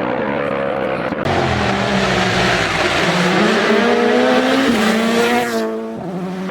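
Rally car at full throttle, passing close: the engine note climbs steadily, drops at a gear change and climbs again, over a loud rushing hiss of tyre and air noise that starts suddenly about a second in and cuts off near the end.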